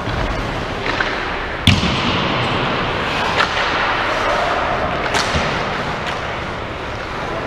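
Ice hockey play: sharp clacks of sticks and puck, the loudest a little under two seconds in and others about three and a half and five seconds in, over the steady hiss of skates and arena noise.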